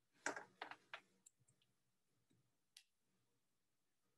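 Near silence broken by a few faint, sharp clicks: a quick cluster in the first second and one more near three seconds in.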